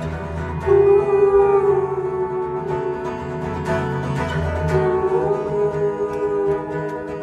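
Pedal steel guitar playing long, sliding notes over a strummed acoustic guitar in an instrumental break.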